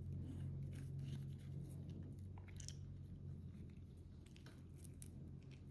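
Faint, scattered clicks and rustles of hands handling a cable and small connector parts, over a steady low hum.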